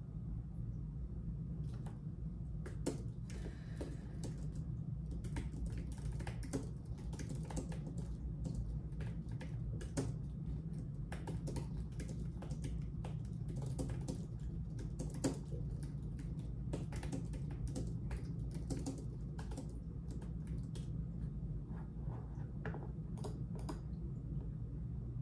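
Typing on a computer keyboard: irregular runs of key clicks starting about two seconds in and stopping shortly before the end, over a steady low hum.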